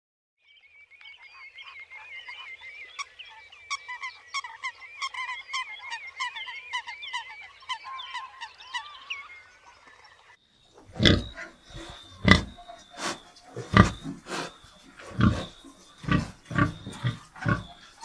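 Animal calls: about ten seconds of faint, high chattering and warbling, then from about eleven seconds in a run of loud, deep grunts, one or two a second.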